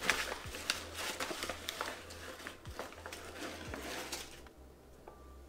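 Paper flour bag crinkling and rustling as flour is scooped out of it with a cup, with many small clicks and scrapes. It dies down about four and a half seconds in.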